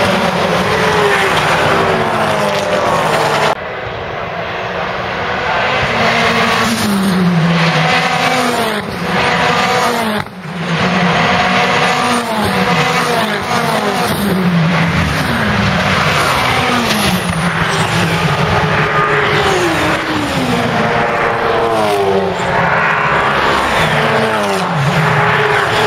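A pack of race car engines passing at high revs, one after another, each engine note sweeping down in pitch over about a second.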